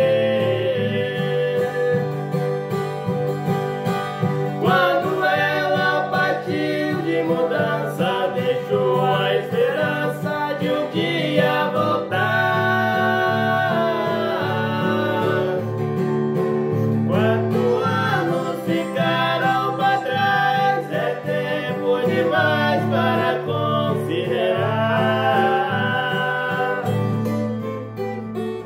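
Two men singing a song together, accompanied by a twelve-string acoustic guitar.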